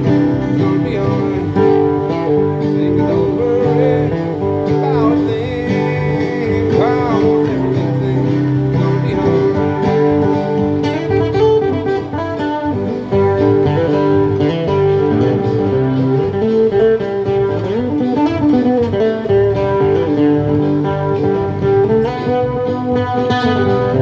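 Steel-string acoustic guitar played in a steady run of chords.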